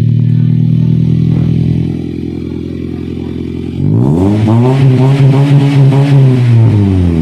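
2015 Toyota Vios's four-cylinder engine idling through its repaired muffler pipe, going quieter about two seconds in, then revved: the pitch rises about four seconds in, holds for a couple of seconds and falls back near the end. The exhaust is whole again and no longer sounds bad.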